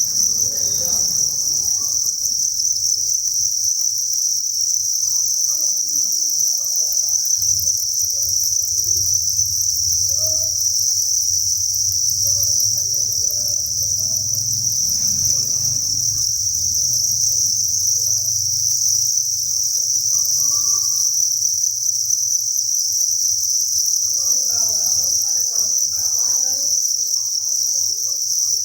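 Chorus of thousands of farmed crickets chirping together, a dense, unbroken high trill.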